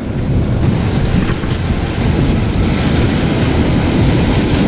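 Waves breaking and washing over shoreline rocks: a loud, steady rushing noise heaviest in the low end.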